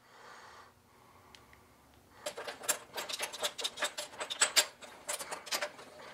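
Socket ratchet clicking in quick, irregular runs, starting about two seconds in and stopping near the end, as a spark plug is backed out of the engine.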